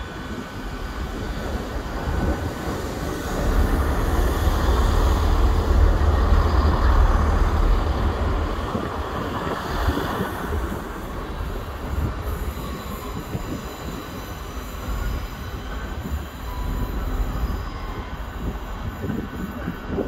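Diesel multiple unit train running over curved track, a steady rumble that swells in the first half, with faint wheel squeal.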